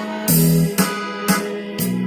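Roland E-X30 arranger keyboard playing an auto-accompaniment style: a steady drum beat at about two hits a second under sustained bass notes and chords.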